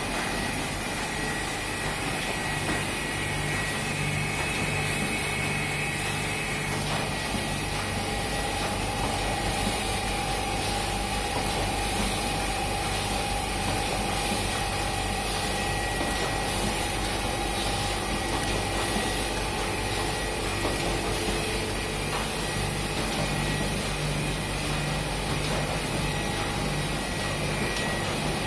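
Sakurai SC72A cylinder screen printing press and its UV curing unit running steadily in production: a continuous mechanical hum with a few steady tones in it. A higher tone stands out from about eight to twenty seconds in.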